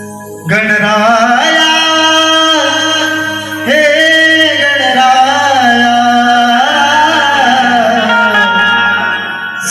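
A male singer holding long, ornamented notes of a Marathi devotional gan to Ganesha over a steady drone and instrumental accompaniment, coming in loudly about half a second in.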